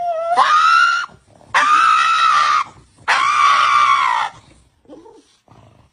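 An animal screaming three times, each a loud, long, high-pitched call of about a second, the first sliding up in pitch as it begins.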